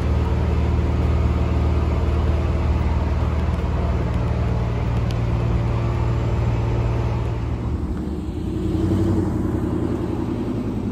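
A vehicle engine idling with a steady low hum. About eight seconds in the sound changes to a truck running as it drives along the road.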